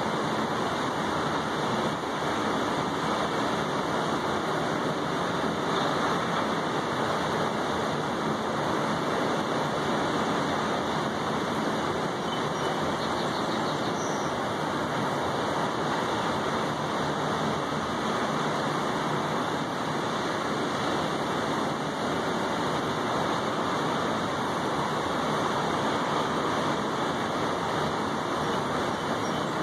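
Steady rain falling on a wet balcony tabletop and railing, an even, unbroken hiss of rain.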